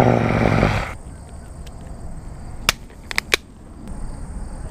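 A man's low frustrated growl lasting about a second, then quiet outdoor background with a few sharp clicks about three seconds in as fishing tackle is handled at the tackle bag.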